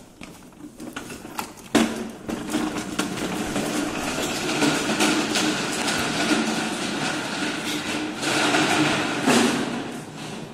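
Plastic wheels of a toddler's ride-on toy car rolling and rattling over a tiled floor as it is pushed along. A knock about two seconds in starts a steady clattering rumble that stops near the end.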